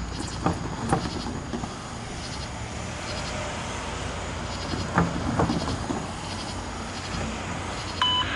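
Loaded CSX autorack freight train approaching: a steady rumble with pairs of short sharp squeaks about half a second in and again about five seconds in. Near the end a steady radio tone starts: a trackside defect detector's broadcast coming over a scanner.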